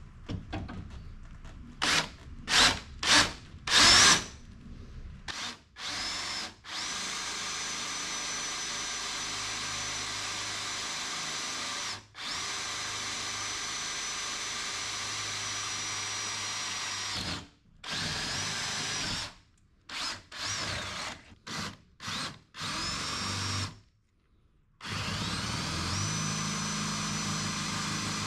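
Power drill boring holes through the lower door armor and the bottom of a Jeep Cherokee XJ door: a few short trigger blips at first, then long steady runs with a high whine, broken by a brief stop and a string of short bursts partway through.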